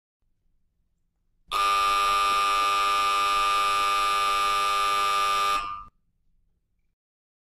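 A loud, steady electric buzzer tone lasting about four seconds, switching on sharply about a second and a half in and cutting off abruptly.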